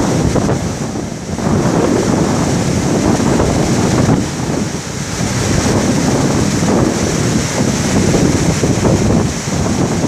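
Wind-driven storm waves breaking on a sandy beach: a continuous heavy rush of surf that eases briefly about a second in and again around halfway, then swells back. Strong wind buffets the microphone.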